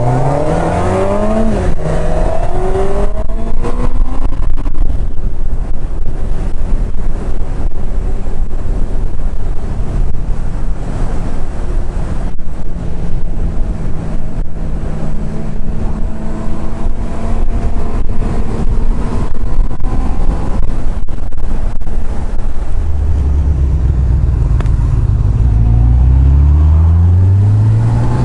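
Motorcycle engine pulling hard, its pitch rising at the start, then holding steady at cruising speed under heavy wind rush on the microphone, and near the end climbing again in several rising steps as it goes up through the gears.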